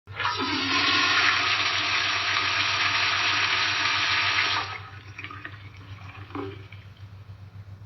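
Toilet flushing: a sudden rush of water that runs loudly for about four and a half seconds, then falls away to a quieter trickle with a couple of small splashes.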